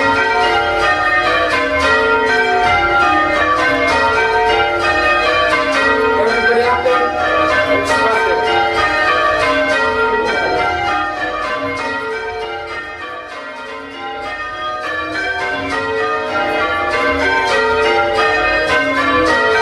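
A loud ring of six church bells, a mix of Bilbie and Llewellins & James bells with a tenor of about 6 cwt in B flat, rung full-circle in a steady, even stream of strikes as change ringing, heard from the ringing chamber. The sound dips a little about twelve seconds in, then picks back up.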